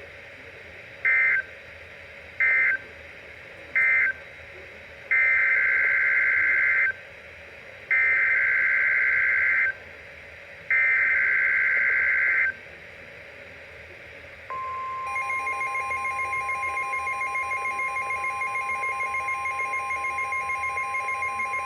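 Emergency Alert System SAME data bursts on NOAA Weather Radio: three short end-of-message bursts, then three longer header bursts that announce the next warning. About 14 seconds in, the steady 1050 Hz warning alarm tone begins, and about half a second later the weather radio receiver's own rapid pulsing alert beeps start over it.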